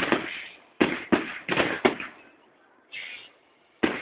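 Aerial firework shells bursting overhead as a series of sharp bangs, each fading off quickly: several in quick succession during the first two seconds, then one more near the end.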